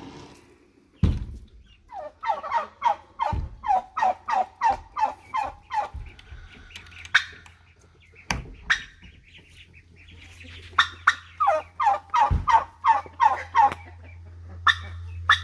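Poultry calling in two quick runs of short, falling calls, about three a second, with a pause between. A few dull thumps are heard, and a low steady hum starts midway.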